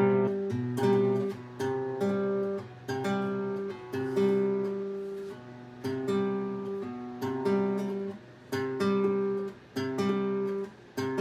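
Acoustic guitar strummed in a slow, steady pattern of chords, each strum ringing on until the next.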